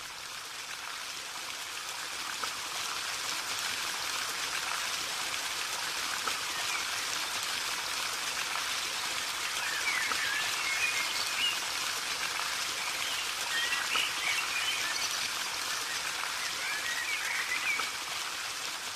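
Steady rain falling, a dense even hiss of drops. A few short high chirping calls come through it around the middle and near the end.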